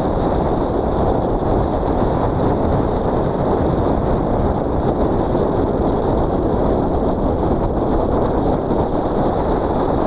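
Ocean surf rushing steadily, with wind noise on the microphone.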